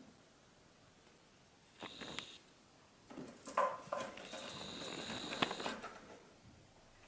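A cat pawing and batting at a toy hanging from a cat tower with a sisal-rope post: rustling and scratching in two bouts, a short one about two seconds in and a longer one from about three to six seconds with a few sharp clicks.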